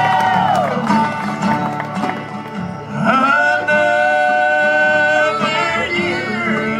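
Live bluegrass music with singing over acoustic guitar: a sung note trails off within the first second, then about three seconds in the music changes to long, high held notes over the band's strummed accompaniment.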